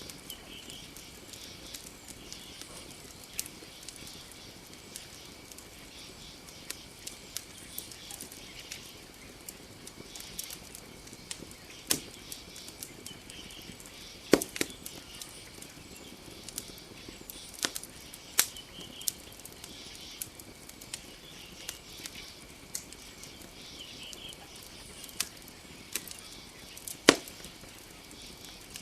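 Campfire crackling with irregular sharp pops, two louder ones about halfway through and near the end, over a steady high-pitched chorus of night creatures.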